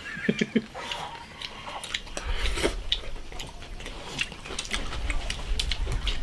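People eating rice from ceramic bowls with chopsticks: quick clicks of chopsticks against the bowls, with chewing. A low rumble sets in about two seconds in.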